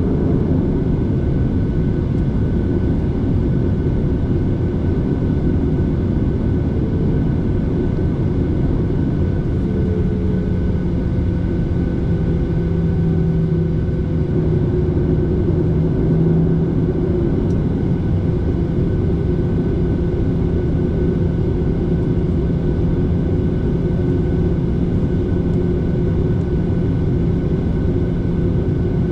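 Airliner cabin noise: a steady drone of the jet engines and airflow heard from inside the passenger cabin, with a constant hum under it that strengthens for a few seconds partway through.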